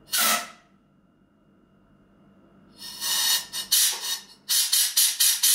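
Compressed-air blow gun hissing into an oil-line fitting on a lathe headstock, testing whether the lubrication passage is clear. One brief blast at the start, then from about three seconds in a string of blasts, the later ones short and rapid.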